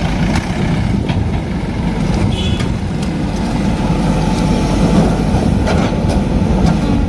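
Heavy diesel machinery engine running steadily with a low rumble, with a few short clicks or knocks over it.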